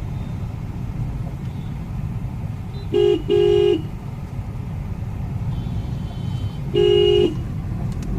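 A vehicle horn sounds three times: a short toot and a longer blast just after three seconds in, then another blast around seven seconds in. Under it runs a steady low rumble of road traffic.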